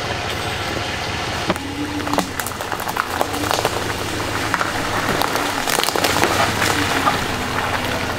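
Off-road vehicle moving over a forest track: steady tyre and running noise with many small crackles and clicks throughout.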